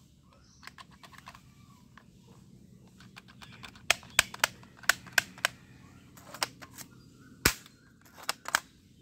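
Plastic toy gun being worked: a string of sharp, irregular clicks and snaps, faint at first and then loud from about four seconds in, the loudest about seven and a half seconds in.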